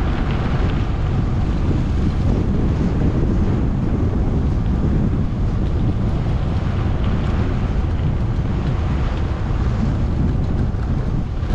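Strong wind buffeting an exposed microphone: a loud, steady, low rumble of wind noise.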